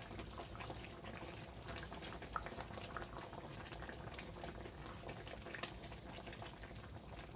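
Brown flour-roux gravy simmering in a skillet with smothered steak and green peppers, a steady bubbling with many small irregular pops as the added hot water comes to a boil and the gravy starts to thicken.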